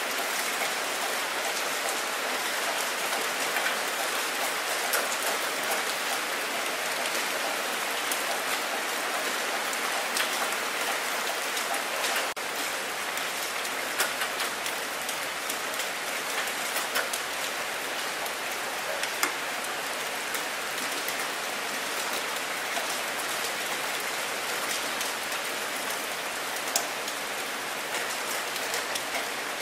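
Steady rain: an even hiss of falling rain with scattered close drops ticking now and then.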